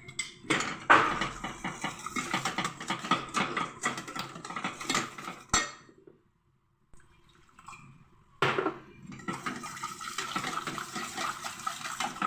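A utensil stirring and scraping around a cooking pot as flour and milk are worked into a béchamel sauce to keep it from lumping, with rapid clattering strokes. The stirring stops for about two seconds midway, then starts again.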